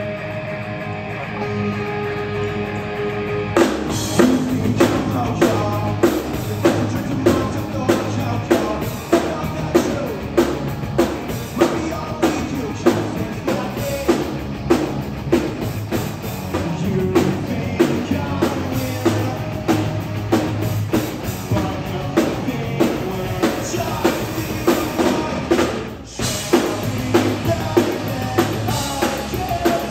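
Live rock band playing: an electric guitar intro with held chords, then drums, bass and vocals come in about three and a half seconds in with a steady beat. The band stops for a moment near the end before playing on.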